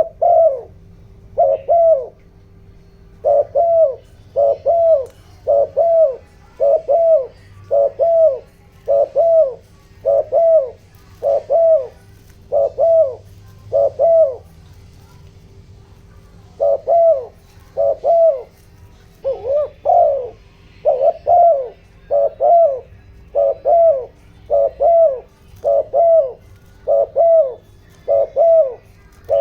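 Spotted dove cooing in a long run of short, evenly spaced coos, about one to two a second, with a pause of about two seconds midway. This is the fast 'thúc gù' cooing of a decoy dove, used to provoke wild doves. A faint steady hum sits underneath.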